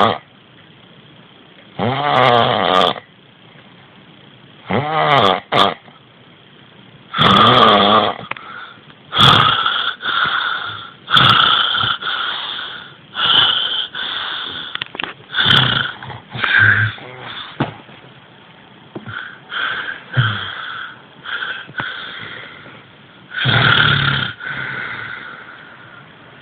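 A person making loud snoring, rasping sounds in irregular bursts, about one to two seconds apart, some with a low buzzing pitch.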